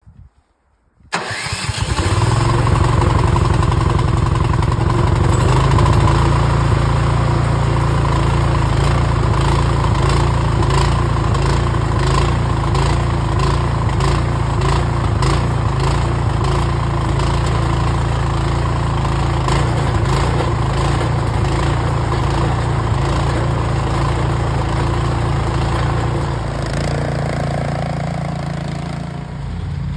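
Cub Cadet 3X three-stage snow blower engine catching suddenly about a second in, then running steadily at speed. Near the end it is throwing snow through its chute and the sound shifts a little.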